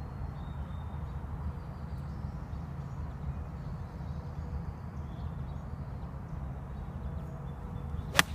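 A single sharp click near the end as a 54-degree sand wedge strikes a golf ball on a three-quarter swing, over a steady low rumble.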